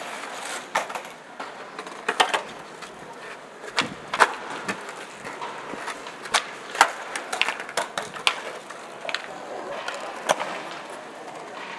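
Skateboards rolling over smooth stone paving, a steady hiss of wheels broken by about a dozen sharp clacks of tails popping and boards landing at irregular intervals.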